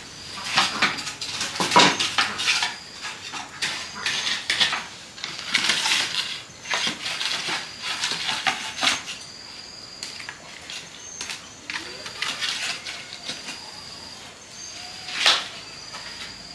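Firewood sticks knocking against each other and against an iron trivet as a fire is laid in an open floor hearth: a long run of irregular wooden knocks and metal clinks, with a sharper knock about two seconds in and another near the end.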